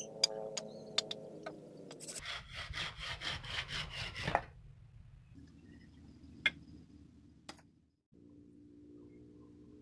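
Hand saw cutting through a tree branch, quick even strokes for about two seconds. Before it, wooden sticks knock as they are set down; after it come two single sharp knocks, over a faint low hum.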